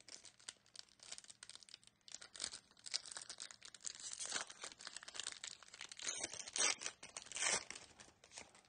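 Foil wrapper of a Topps Chrome baseball card pack being torn open by hand, crinkling and crackling throughout, with a few louder rips about six to seven and a half seconds in.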